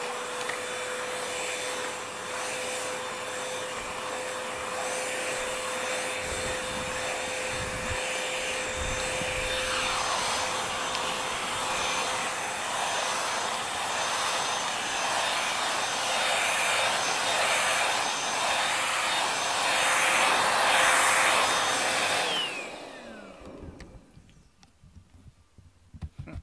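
Vacuum cleaner running: a steady motor whine over rushing air, louder in the second half. It is switched off about twenty-two seconds in, and its whine falls away as the motor spins down.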